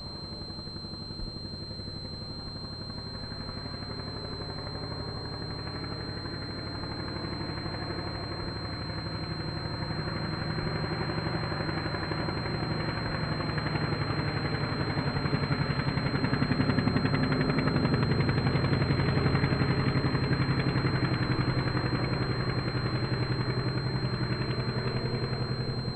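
Laser 180 four-stroke glow engine of a large-scale radio-controlled de Havilland Tiger Moth running steadily in flight. It grows louder as the model comes closer, is loudest about two-thirds of the way through, then eases slightly.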